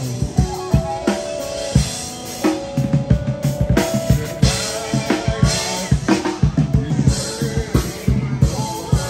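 Music with a prominent drum-kit beat, kick drum and snare hitting steadily under held melodic tones.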